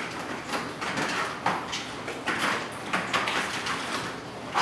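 Plastic ball rolling around a plastic Bergan Turbo Track cat toy, a rattling rumble that rises and falls in swells as the cats bat it, with a few sharp knocks when the ball is hit.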